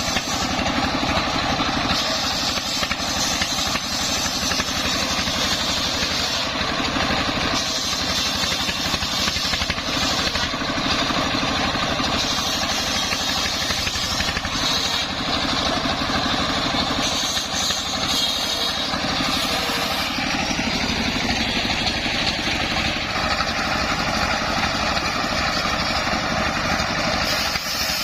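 Dongfeng 24 hp single-cylinder diesel engine running steadily, driving a homemade circular sawmill rig.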